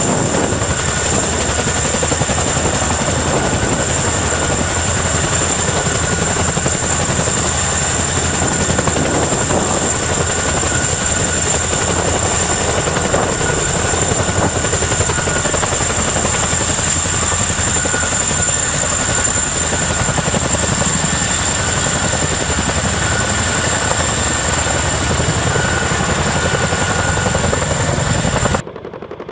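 CH-47 Chinook tandem-rotor helicopters hovering: loud, steady rotor and engine noise with a constant high turbine whine over it. The sound cuts off abruptly near the end.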